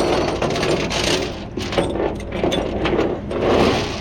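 Metal rattling and clinking in uneven bursts, typical of tow chains and hooks being handled, over a steady low engine hum.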